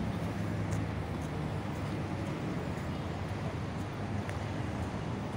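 A vehicle engine's steady low hum over outdoor street noise, fading after about two seconds.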